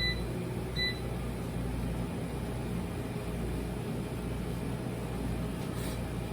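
Air fryer running with a steady fan hum. Two short, high electronic beeps sound near the start, a little under a second apart.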